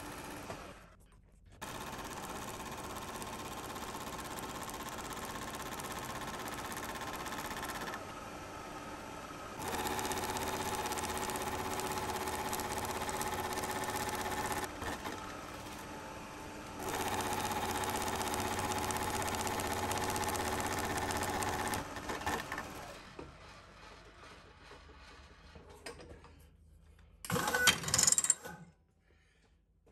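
Milling machine face mill cutting a mild steel bar: a steady machining drone with a held whine, in several passes that grow louder partway through, then dying away. Near the end comes a short, loud clatter as the tool is handled.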